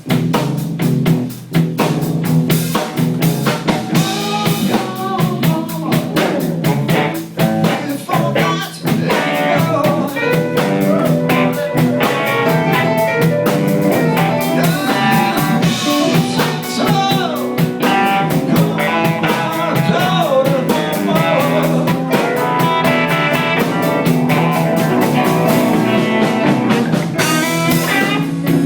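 Live blues band playing, with guitar lines over a steady drum-kit beat.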